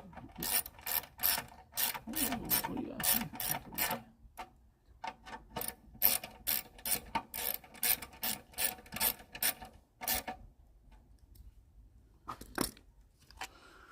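Hand ratchet clicking in quick, even strokes, about three a second, in two runs with a pause between, as screws on the lawnmower are driven in; two more clicks near the end.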